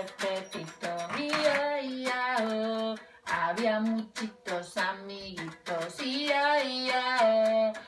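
A woman singing a song into a toy microphone, holding steady notes that step up and down in pitch, with evenly spaced ticks behind the singing.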